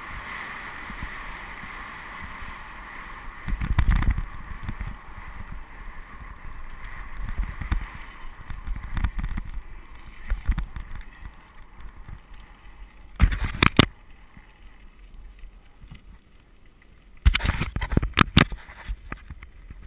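Mountain bike descending a dry dirt trail: steady rushing and rumbling from the tyres and the ride, with the bike rattling and clattering over bumps. Sharp knocks stand out about four seconds in, twice around thirteen seconds, and several more near the end.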